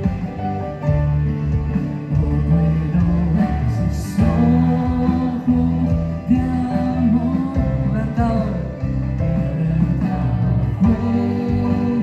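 Live worship band playing a song, with guitar and a sung melody over sustained chords.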